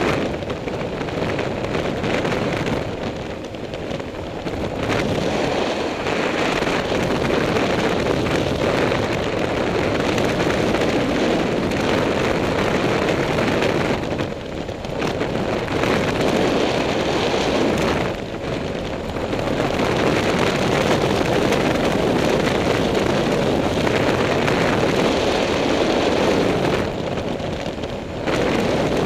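Wind rushing over the microphone of a camera on a moving motorcycle, with the motorcycle's engine and road noise beneath. It drops for a moment several times.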